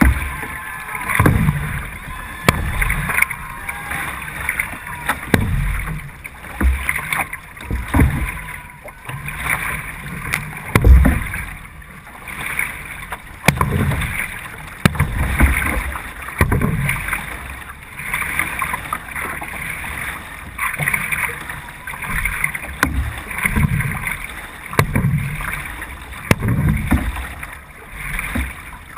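Single-blade C1 canoe paddling at race pace: the paddle catching and pulling through the water with a splashing surge about every one and a half seconds, over the steady wash of water along the hull.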